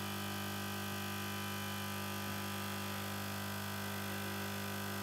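Hot air rework station running: a steady low electric hum from its handpiece fan blowing hot air.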